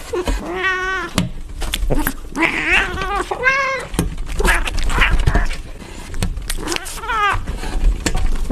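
Cats meowing several times in long, wavering calls, with scattered knocks and taps.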